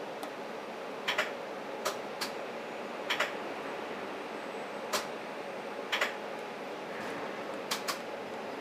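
Inside a TTC streetcar: a steady running hum with about a dozen irregular sharp clicks and ticks, several of them in quick pairs.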